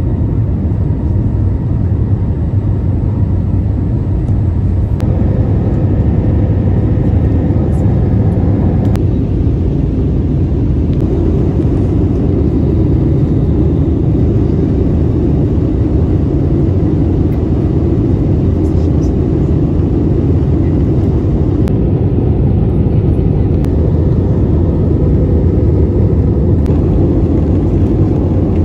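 Steady low roar of an Airbus A320neo's engines and airflow, heard from inside the cabin at a window seat over the wing. The tone shifts slightly a couple of times.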